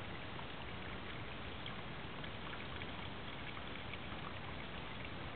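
Steady rush of a bush stream running over its bed, with faint scattered ticks.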